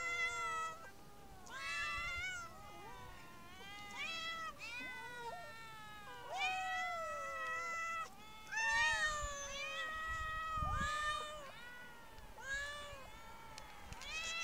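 Several young street cats meowing over and over, a dozen or so calls that often overlap, many rising and then falling in pitch.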